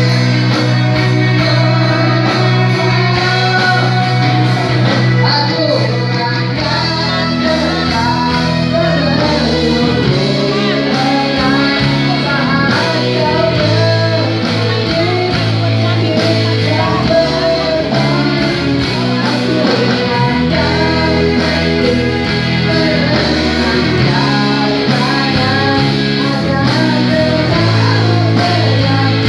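Live band playing a pop song with guitars and a steady bass line, a male singer singing over it into a microphone.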